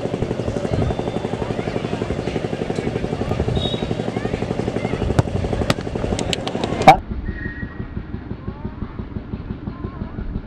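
A small engine running steadily with a fast, even throb, with a few sharp clicks near its end. It cuts off abruptly with a loud pop about seven seconds in, leaving a much quieter, duller background.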